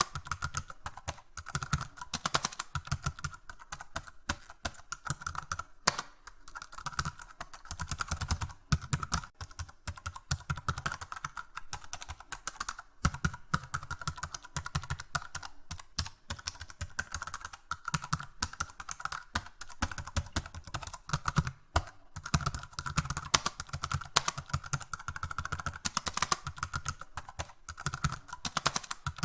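Continuous typing on a computer keyboard: rapid key clicks in quick runs, with short pauses between bursts.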